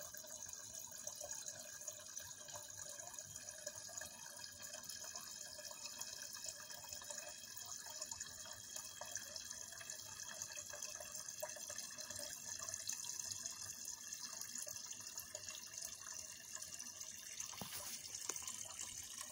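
Water running in a steady, continuous flow, splashing evenly without a break.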